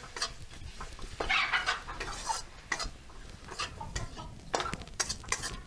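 Metal spatula scraping and stirring a dry mix of roasted flour, gram flour and jaggery around a metal kadai, in irregular scrapes and clinks against the pan.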